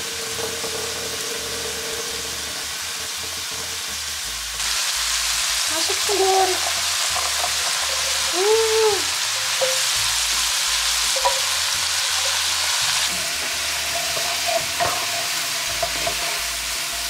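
Diced onion and bell pepper sizzling in a frying pan and being stirred with a wooden spoon. The sizzle gets louder about four and a half seconds in and eases back a few seconds before the end. Two short squeaky tones come in the middle, around six and nine seconds in.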